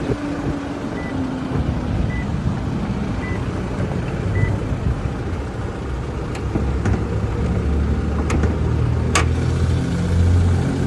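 Toyota Hilux engine idling with a steady low rumble that grows louder near the open engine bay. For the first few seconds a dashboard warning chime beeps about once a second, and a few sharp clicks come later.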